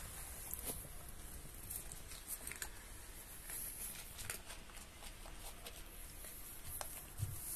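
Several cats crunching dry kibble from a tray: a run of small, irregular crunches and clicks, with a soft thump near the end.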